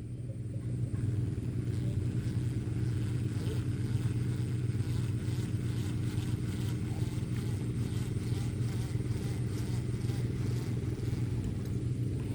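A steady low engine hum running evenly, with faint light ticking over it.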